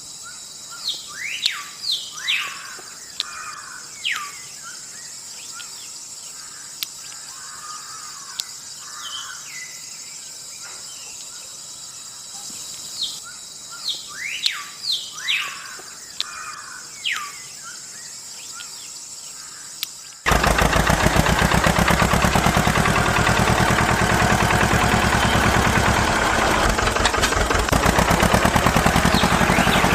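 Birds chirping: short, quick falling calls in scattered clusters over a faint steady hiss. About two-thirds of the way in, a much louder, steady rushing noise starts abruptly and drowns them out.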